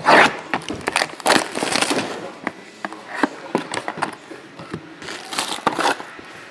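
Box cutter slicing through the shrink wrap of a trading card box, then plastic wrap crinkling and cardboard scraping as the box is opened and a foil pack pulled out: a string of scrapes, crackles and rustles, loudest at the start.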